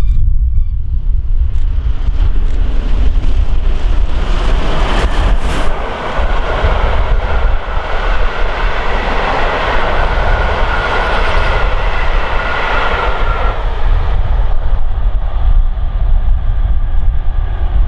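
Steam locomotive Tornado, an A1 Pacific, passing at speed with its train of coaches, over a steady low rumble. The rushing, rolling noise of engine and carriages builds over the first few seconds and eases off in the second half as the train goes by.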